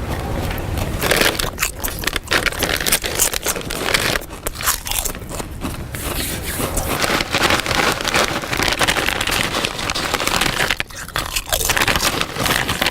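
A person eating crunchy food loudly, chewing and biting in a dense run of crunches and crackles.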